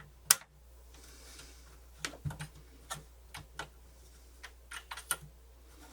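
Scattered light clicks and taps of plastic cassette-deck parts being handled, as the cassette doors and transport mechanism of a partly dismantled double deck are worked by hand: one sharp click near the start, then a dozen lighter irregular clicks.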